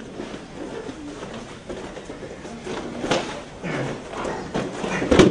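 Scuffling and impacts of a martial-arts self-defense demonstration on a padded floor: a soft thud about three seconds in and a sharp, loud impact near the end.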